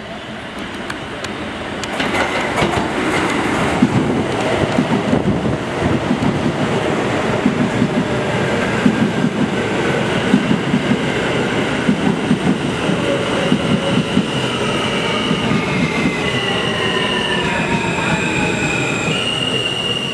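New York City Subway R160 train pulling in and braking to a stop: its wheels rumble and clatter over the rails, and the traction motors' whine falls in pitch as it slows. Near the end come a few stepped tones as it comes to a halt.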